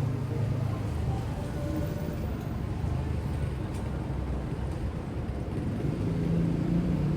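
Street traffic: the low engine rumble of passing vehicles, with a deeper hum swelling about six seconds in.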